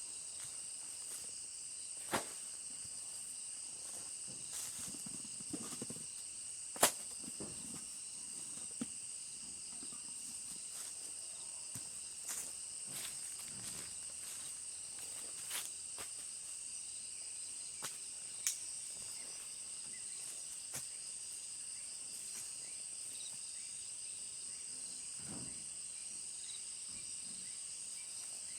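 Steady chorus of insects, a continuous high-pitched trilling, with a few short sharp clicks or knocks scattered through it, the loudest about seven seconds in.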